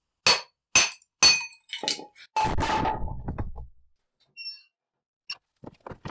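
A 4-pound sledgehammer strikes a steel splitting wedge in a log three times, about half a second apart, each blow ringing metallically. The log then splits, and the halves fall and clatter on the concrete floor. A brief metallic ring and a few light knocks follow.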